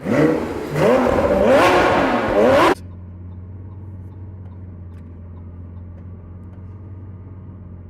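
Lamborghini Aventador's V12 engine revved hard several times, pitch rising and falling, then cutting off suddenly and settling to a steady low idle.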